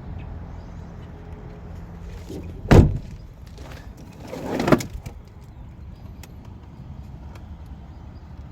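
A vehicle door shuts with one heavy thump, and about two seconds later comes a short rising swish that ends in a second, lighter knock.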